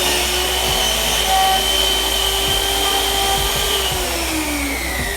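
Electric power tool motor running with a steady whine, then winding down with its pitch falling away over the last second or so.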